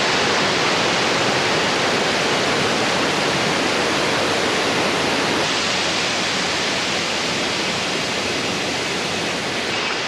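Steady rushing of water from a small waterfall cascading over rocks into a pool and a rocky mountain stream, a little quieter in the second half.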